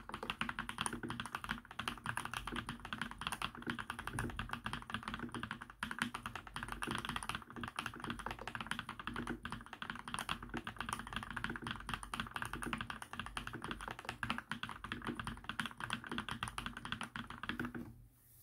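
Fast, continuous typing on an Emstone Groove T mechanical keyboard with fully lubed 45 g Milky v2 linear switches, giving dense, soft keystroke clacks. The typing stops just before the end.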